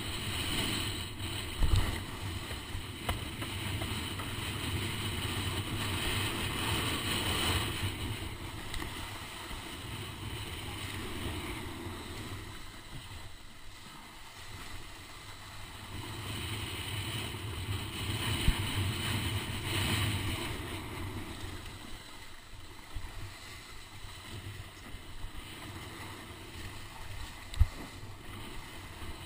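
Wind buffeting the camera microphone over water rushing past a planing windsurf board on choppy sea, the noise swelling and easing every few seconds. A sharp knock comes about two seconds in, and another near the end.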